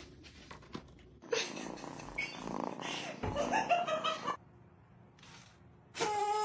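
A cat meowing, in a stretch of about three seconds starting just over a second in and again near the end.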